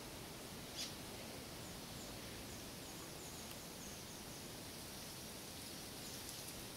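Steady outdoor hiss with the faint, high, short chirps of a distant bird, repeated about three times a second for a couple of seconds. A single soft tick comes about a second in.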